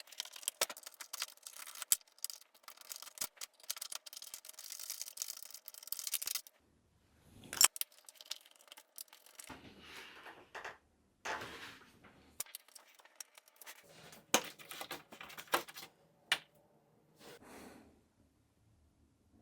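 Handling noise from a deadbolt being taken out and a smart lock fitted: lock hardware and tools clicking, scraping and rattling. A dense run of clicks lasts about six seconds, then come separate sharp clicks and short scrapes with quiet gaps between them.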